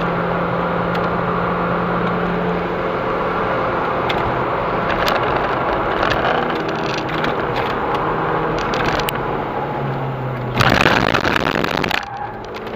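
VW Golf V GTI's turbocharged four-cylinder engine running at track speed, heard from inside the cabin with road and tyre noise; the engine note shifts as the car slows under braking. Near the end a loud, harsh noise lasts about a second and a half, then the level drops.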